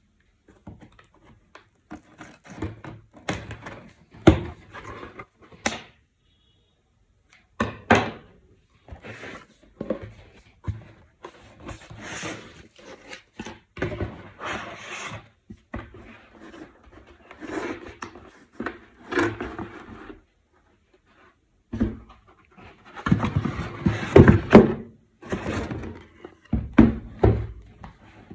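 Handling noise from unboxing a Mac mini: cardboard and packaging rustling and scraping, broken by repeated knocks and thuds as the box and its contents are handled, busiest near the end.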